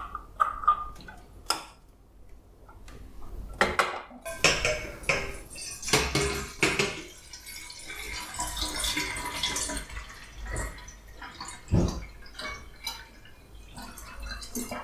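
Clinks and knocks of the metal and glass parts of a vintage Hermann Eicke coffee maker being handled, with water dripping.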